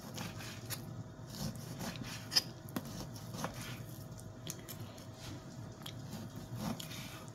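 Kitchen knife slicing raw pork on a wooden cutting board: soft, wet cuts through the meat with scattered light taps of the blade on the board.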